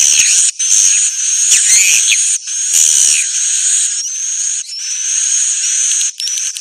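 Birdsong lure recording: a dense run of high, quick rising whistled chirps repeated over and over, with busy chatter beneath them and a few brief gaps.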